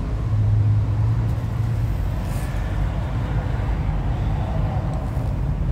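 Steady low rumble of road traffic, with a vehicle's engine hum standing out for the first couple of seconds.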